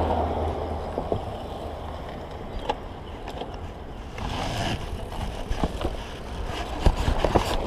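Road traffic passing, with low wind rumble on the microphone. Scattered light clicks and rustles come from handling a folded rubber bicycle inner tube.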